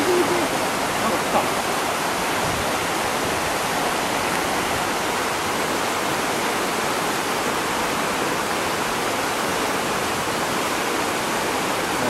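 Fast-flowing river water rushing steadily past a concrete bank.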